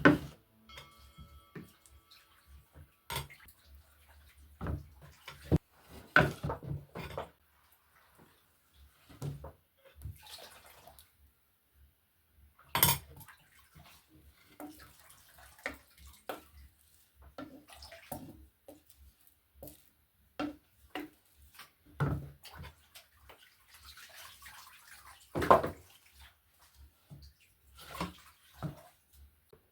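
Dishes and pots clinking and knocking against each other with splashing water, as in washing up by hand: irregular clatter with a few louder knocks.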